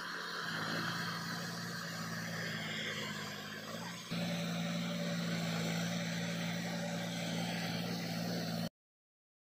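John Deere 5050D tractor's three-cylinder diesel engine running steadily under load while its rotavator churns flooded paddy mud. The sound steps suddenly louder about four seconds in and cuts off abruptly near the end.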